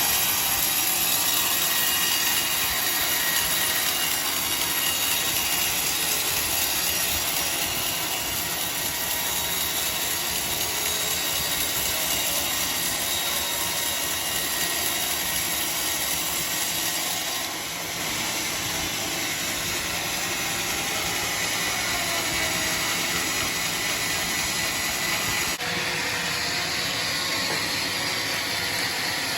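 Sawmill saw machinery running with a steady, noisy drone. The sound changes abruptly about two-thirds of the way through and again near the end.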